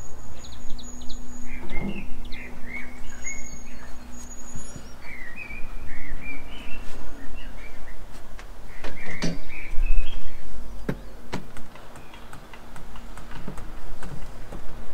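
Small birds chirping and singing in short repeated phrases, with a few sharp knocks and taps from the plywood wall panel being handled, over a low steady hum.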